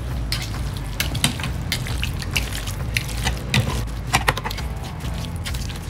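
Meat claws tearing apart a very tender, juicy smoked pork butt: a continuous irregular run of wet squelching and tearing with sharp clicks. The wet sound is the sign of moist, fall-apart-tender meat.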